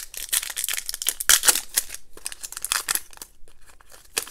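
Crinkling and rustling of a plastic-foil Donruss Optic football card pack wrapper as it is handled and torn open, dense for the first three seconds, loudest about a second and a half in, then quieter.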